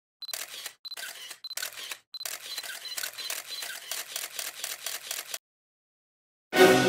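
A rapid run of sharp clicks, like a camera shutter firing again and again, with short high beeps among them, broken by brief gaps. The clicks stop abruptly, and near the end music comes in loudly.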